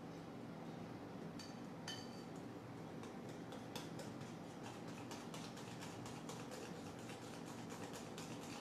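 A mixing utensil ticking against a glass bowl as thin batter is stirred by hand: faint, quick ticks, thickest in the second half at about four a second, over a steady low hum.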